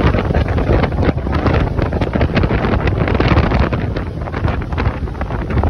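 Loud wind buffeting the microphone on a motorboat under way, over the rush and knocking of the boat running across the water.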